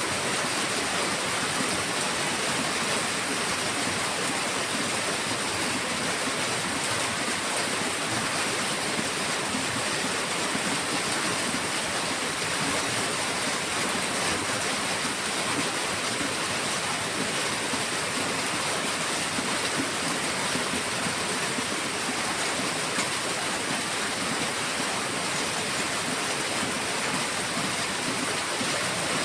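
Heavy rain falling steadily: a dense, even hiss with no breaks or single drops standing out.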